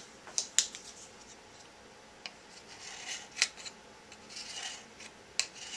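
Metal knife blade scraping at the thermal pad on top of the SGI Octane's Crossbow chip: a few short scrapes mixed with sharp ticks of the blade on the chip and board.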